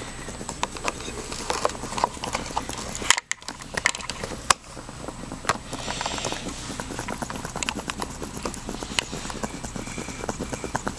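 A sleeping pet snoring: a run of quick, soft clicks and snuffles, with a breathy hiss about six seconds in.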